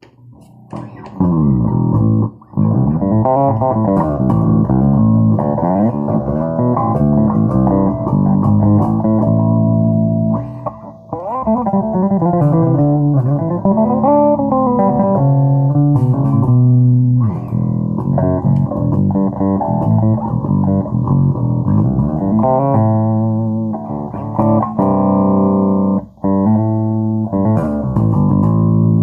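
Electric bass guitar played through a Markbass combo amp with a 12-inch speaker and tweeter, now working cleanly after repair of its tweeter, crossover and switch. It plays a continuous run of notes with slides and bends, starting about a second in.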